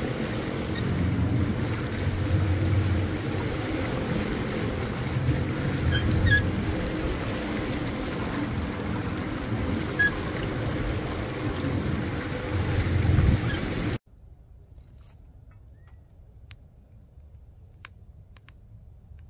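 Small outboard motor running steadily on a boat under way, with wind and water noise. About two-thirds of the way through it cuts off suddenly, giving way to faint crackling of a wood fire in a barrel stove: a few sharp clicks.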